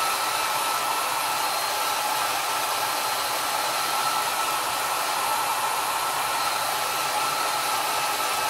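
Handheld hot-air dryer blowing steadily with a faint whine, drying wet white gel pen ink on a paper cut-out.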